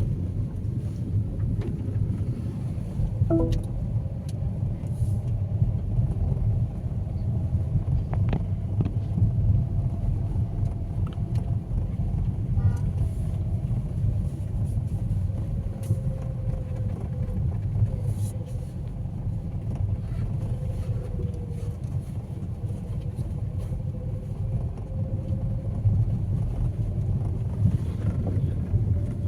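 Steady low rumble of vehicle and road noise, with a faint engine hum that wavers up and down in pitch.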